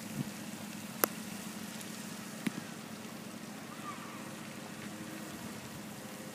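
Steady outdoor ambience: an even hiss with a faint, steady low hum underneath, broken by two sharp clicks, about a second in and again about two and a half seconds in.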